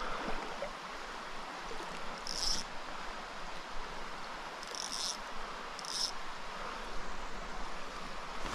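Small mountain stream running steadily over rock, with three short, high-pitched buzzy calls about two, five and six seconds in.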